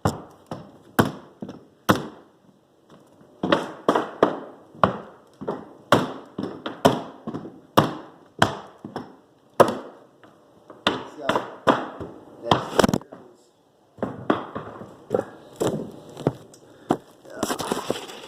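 Mallet blows on a manual flooring nailer driving fasteners through hardwood floor boards: sharp, woody knocks coming one or two a second in uneven runs, with two short pauses.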